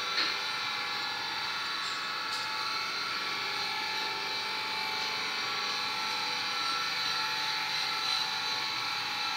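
Steady mechanical hum and whine of a running machine, with a light click just after the start and another about two seconds in.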